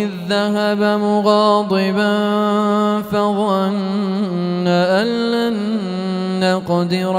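A male reciter's melodic Quran recitation (tajweed), a single voice drawing out long, ornamented held notes with brief breaks about three and seven seconds in.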